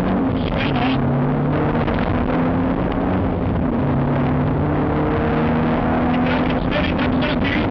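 BMW 318is four-cylinder rally engine heard from inside the cabin, pulling hard, its pitch stepping up and down several times as the revs change, over steady tyre and road noise.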